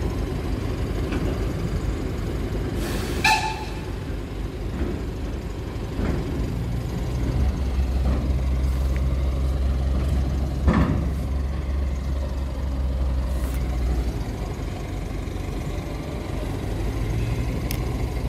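Narrow-gauge steam locomotive 99 331 setting off with its train: a steady low rumble throughout, a short whistle toot about three seconds in, and a single sharp knock a little before eleven seconds.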